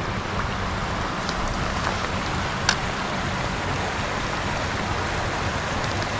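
Steady rush of water from a spring-fed creek pouring into the river, with one sharp click about halfway through.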